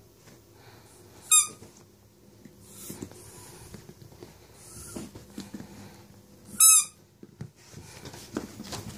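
A rubber squeaky dog toy squeaks twice, short and loud, about a second and a half in and again about five seconds later. Between the squeaks a Yorkshire terrier scuffles and rustles on the bedding as it plays.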